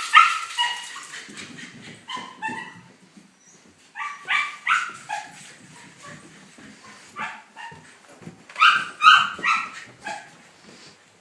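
A dog barking and yipping in short high-pitched bursts, two or three calls at a time with pauses between, eager to be taken for a walk.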